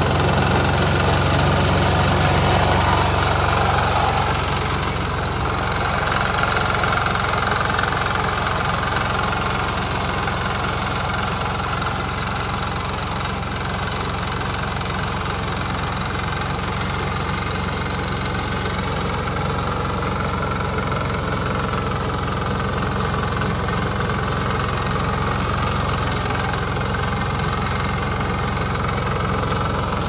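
Engine of a walk-behind mini tiller running steadily while it drives a paddy reaper attachment cutting rice. It is a little louder for the first four seconds or so.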